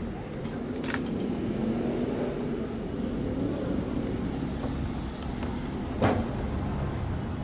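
A motor engine running steadily with a low hum, with a sharp knock about a second in and a louder knock about six seconds in.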